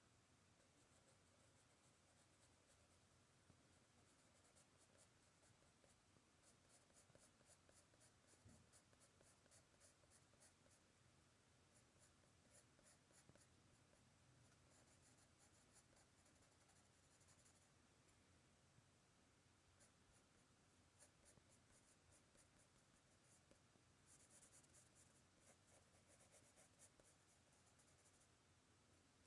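Faint scratching of a soft 5B graphite sketching pencil on sketch-pad paper, in runs of quick short strokes separated by short pauses, as the lines of a drawing are gone over to make them darker.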